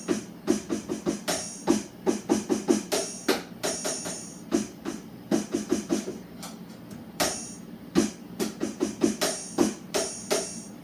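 Drum sounds played as a fast, uneven beat of several hits a second, mixing low thuds with brighter, hissy strikes.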